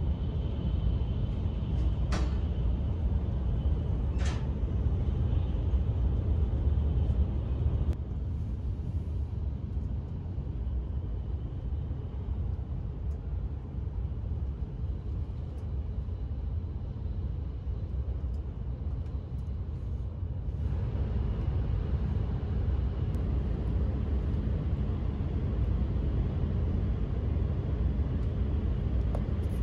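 Steady low rumble of a Hayabusa Shinkansen's passenger cabin heard from inside while the train runs. Two short creaks come in the first few seconds. The rumble drops a little about eight seconds in and comes back up about twenty seconds in.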